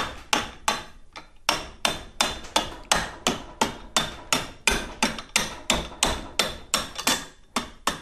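Repeated sharp taps, about three a second, driving a long screwdriver used as a punch to knock the old pedal hinge rod out of a KingSong KS18XL electric unicycle pedal. Each tap has a short metallic ring.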